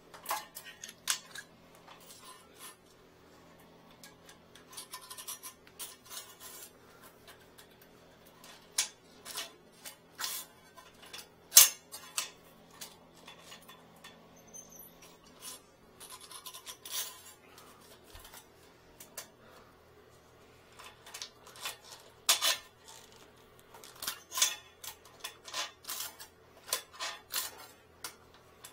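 Irregular clicks, taps and scrapes of a wire retrieval hook and a corrugated inspection-camera hose being worked around inside a porcelain toilet bowl to fish out a dropped object, with the sharpest knock about eleven seconds in. A faint steady hum runs underneath.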